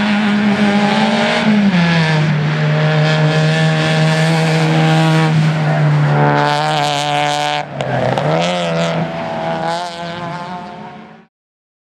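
Racing hatchback's engine running hard on the circuit. Its pitch drops about a second and a half in, holds steady, then dips and climbs again near eight seconds. The sound cuts off abruptly near the end.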